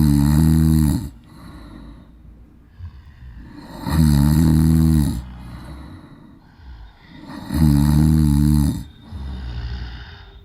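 A woman snoring, three long snores each about a second long, roughly four seconds apart.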